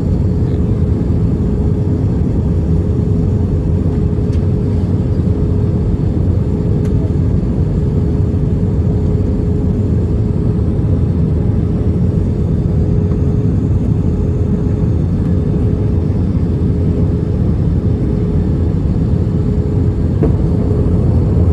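Airbus A320 passenger cabin noise: a steady, loud low rumble of the jet engines and airflow, with a steady hum above it.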